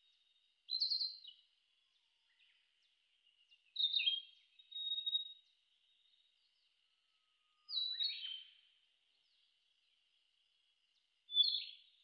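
A male Narcissus flycatcher singing: four short, clear whistled phrases with quick falling slurs, a few seconds apart, over a faint steady high hum in the background.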